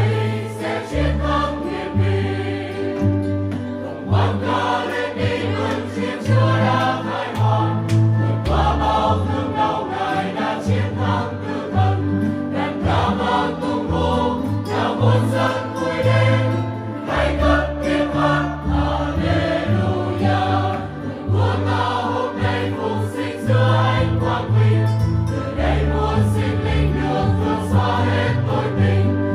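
Large mixed choir singing an Easter hymn in Vietnamese, in parts, over a low accompaniment bass line held in long steady notes.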